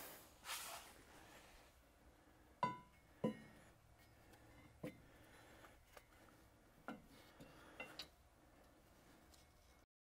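Faint, scattered clinks and taps of steel parts being handled and set in place during shear bar installation, about seven in all, one with a brief metallic ring. The sound cuts off abruptly near the end.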